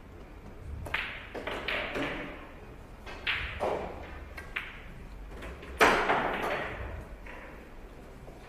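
Pool balls being played on a billiard table: the cue striking the cue ball, balls clicking together and a ball going into a pocket, heard as a string of sharp clicks and knocks with a low hum under them. The loudest knock comes about six seconds in and fades out slowly.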